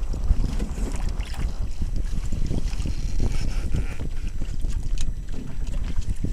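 Wind buffeting the microphone aboard a small sailing trimaran under way, with water washing against the hull on a choppy lake.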